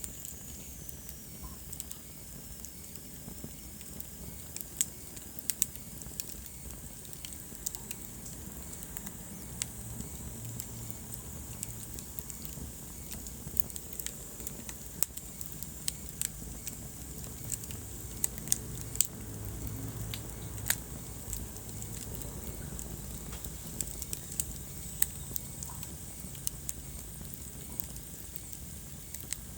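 Wood fire burning in a fireplace: irregular sharp crackles and pops, dozens of them scattered throughout, over a steady low rumble of the flames.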